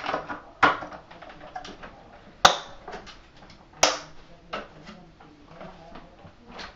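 Irregular sharp clacks and knocks of hard plastic being handled, about seven in all, the loudest two about two and a half and four seconds in. No vacuum motor is running.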